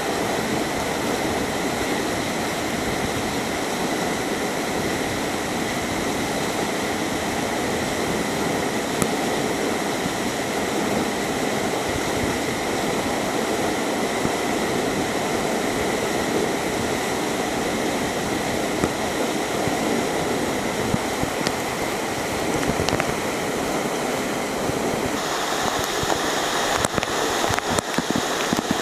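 Waterfall running, a steady rushing of water falling onto rock. Near the end, a patter of sharp crackles from spray striking close to the microphone at the foot of the falls.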